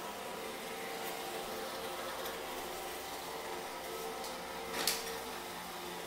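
iRobot Roomba i6+ robot vacuum running across a hardwood floor: a steady motor hum with a few fixed tones, and one brief sharp click about five seconds in.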